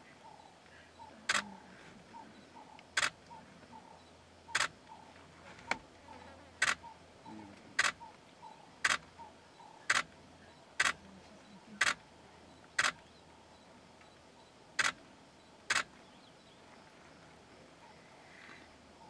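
Camera shutter firing single frames: about a dozen sharp clicks roughly a second apart, stopping a few seconds before the end.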